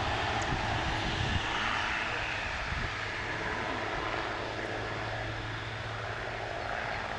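Aerobatic propeller biplane's engine and propeller in flight during an aerobatic display, loud at first and slowly fading, with a falling pitch in the first few seconds.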